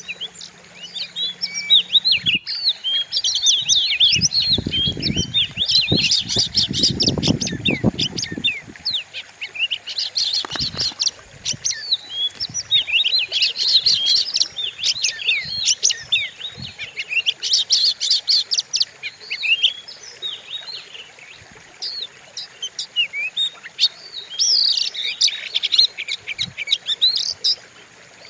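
Oriental magpie-robin (kacer) singing an aggressive provoking song: rapid, varied chirps and whistles in dense runs. A sharp click comes about two seconds in, and a low rumble runs from about four to nine seconds in.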